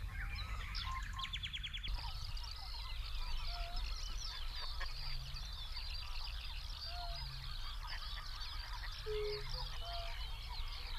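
Many wild birds calling at once in a dense, continuous chorus of short calls, goose-like honks among them, with a few scattered whistled notes. A short, fast rattle sounds about a second in and stops at about two seconds.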